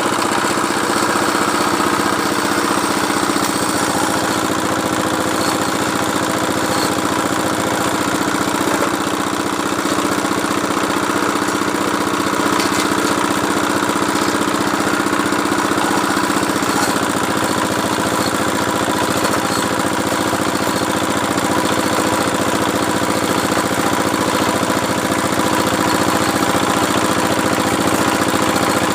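Small engine of a water-well drilling machine running steadily, its hum shifting slightly about two-thirds of the way through.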